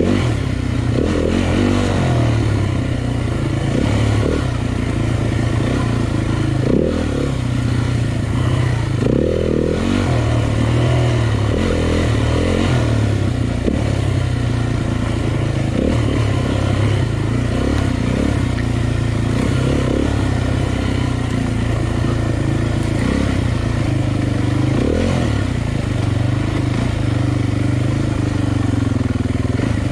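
Dirt bike engine running under constantly changing throttle on a rough trail, the revs rising and dropping every second or two.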